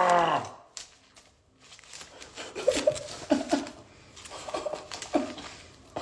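A man's drawn-out vocal, sliding down in pitch, trails off in the first half second, followed by faint mumbled voice sounds and a few light clicks in a small room.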